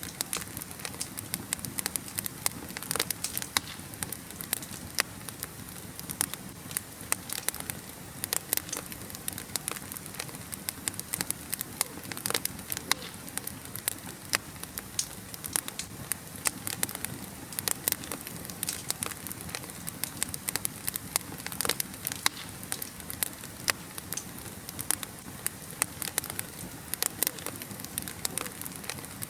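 Wood fire burning in a fireplace, crackling with frequent sharp pops over a soft steady hiss.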